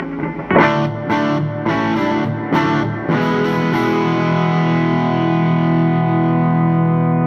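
Electric guitar through an Orange Super Crush 100 amp: about five chords strummed in quick succession, then a chord left ringing from about three seconds in.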